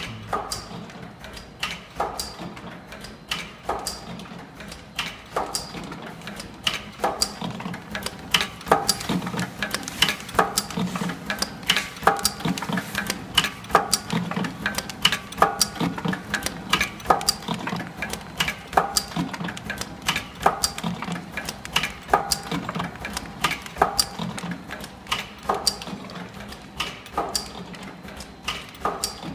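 Tea and coffee bag packing machine running: a steady low hum with a sharp mechanical click repeating about one and a half times a second as it cycles.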